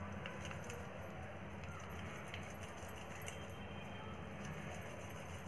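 Faint sounds of oiled hands kneading stiff besan (gram flour) dough in a glass bowl: a few light clicks over a steady low hum.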